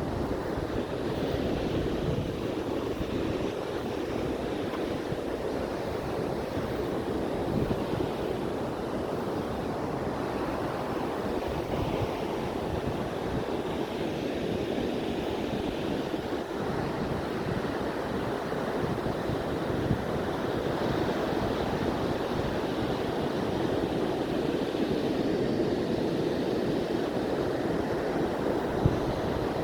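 Atlantic Ocean waves breaking and washing ashore in a steady, continuous surf that swells and ebbs slowly, with wind buffeting the microphone.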